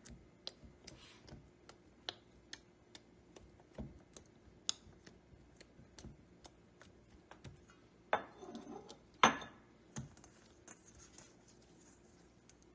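Light, irregular clicks and taps as fingertips poke holes into soft sweet-potato dough and knock the stainless steel bowl beneath it, with two louder knocks about eight and nine seconds in.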